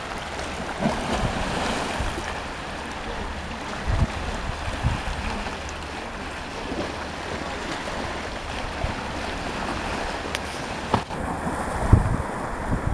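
Black Sea waves breaking in a steady rush, with wind buffeting the microphone in low thumps now and then.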